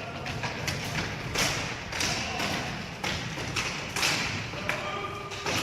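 Irregular thuds and sharp taps of a ball hockey game in play: sticks and ball knocking at uneven intervals.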